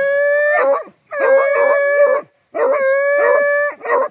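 Hunting hounds baying at a paca's burrow: three long, level howls of about a second each, with short yelps between them.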